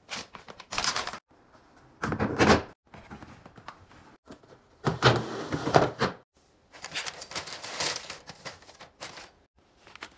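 Plastic handling noise: plastic-wrapped baby wipe packs rustling and clicking as they are set in a plastic storage basket, and the basket scraping and knocking as it is slid into a shelf. It comes in several short bursts that cut off abruptly, the loudest about five to six seconds in.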